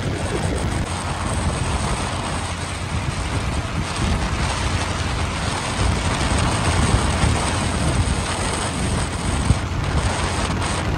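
Motorcycle riding at highway speed: a steady rush of wind on the microphone over engine and road noise.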